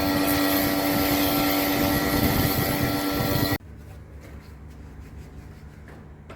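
A machine's motor running steadily with a strong whine over a hiss, cutting off abruptly about three and a half seconds in, leaving a much quieter low hum with faint ticks.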